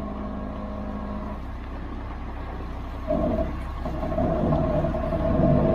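Concrete mixer truck's diesel engine running at a low idle, then revving up about three seconds in and holding a higher, louder note under load.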